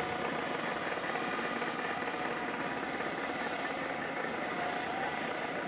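Steady mechanical whirring of small motors, with a faint whine that rises briefly near the end.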